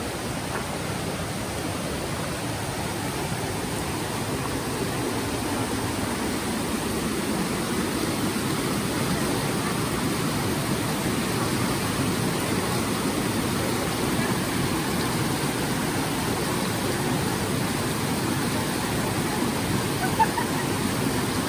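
Swollen river rushing over rocks in white-water rapids, a steady roar of water that grows a little louder over the first half.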